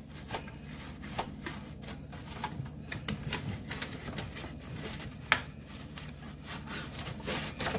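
White foam packing cushions being pulled out of a new air fryer oven's cavity, rubbing against its metal rotisserie basket and interior: a run of light rustles, scrapes and small clicks, with one sharper click about five seconds in.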